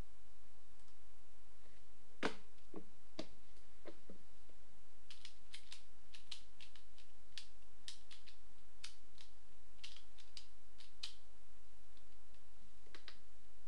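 A pyraminx being turned by hand, its plastic pieces clicking in quick, irregular turns, after a few duller knocks about two seconds in.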